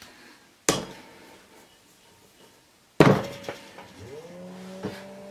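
A sharp slap under a second in, then a lump of clay thrown down hard onto the metal head of a pottery wheel with a loud smack about three seconds in. About a second later the wheel's electric motor starts, its whine rising in pitch as the wheel spins up and then holding steady.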